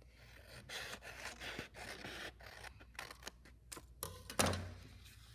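Scissors cutting through painted paper in a run of quick snips, followed by a few light clicks and a thump about four seconds in.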